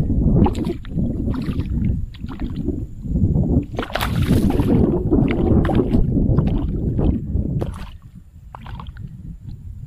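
Water splashing and sloshing as a hooked wild Nile tilapia thrashes at the surface while being landed by hand. The loudest splash comes about four seconds in, and the water goes quieter near the end.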